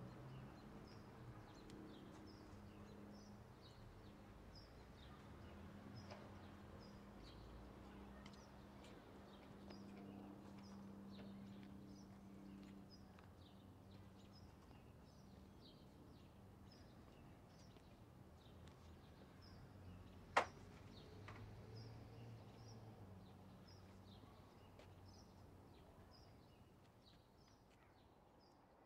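Faint outdoor ambience: small birds chirping in many short high notes, over a low steady hum. A single sharp click about twenty seconds in.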